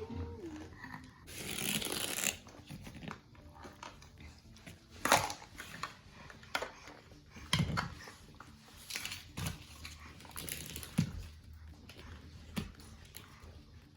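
Toy packaging being opened by hand: wrapper crinkling and tearing, with several sharp plastic clicks and knocks.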